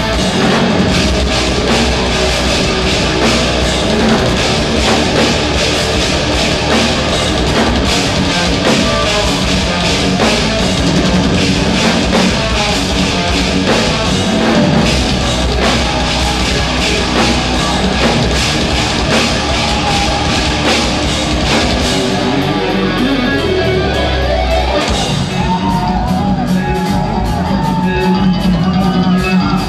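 Live instrumental progressive metal: distorted guitars over a drum kit, played loud. About two thirds of the way through the drumming thins out and a lighter, more melodic guitar passage comes in, with steady drum hits returning near the end.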